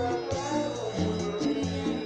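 Live electone (keyboard-led) band music with a steady drum beat and a bass line moving about twice a second.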